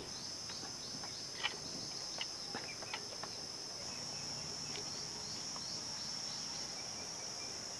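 Steady, high-pitched drone of an insect chorus, with a few faint small clicks in the first few seconds.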